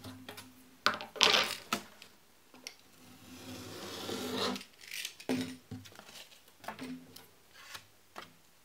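A utility knife drawn along a steel ruler, slicing through foam core board: one smooth scraping cut that swells for about a second and a half, beginning about three seconds in. Around it, knocks and clatter as the metal ruler and board are set down and moved on a wooden bench.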